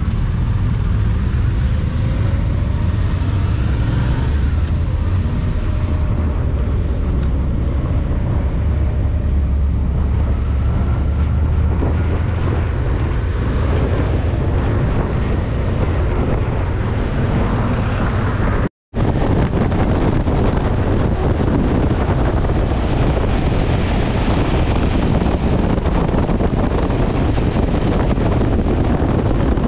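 Motorcycle riding in slow town traffic, its engine a steady low hum. About two-thirds through the sound cuts out for a moment and comes back as a steady rush of wind on the microphone at highway speed.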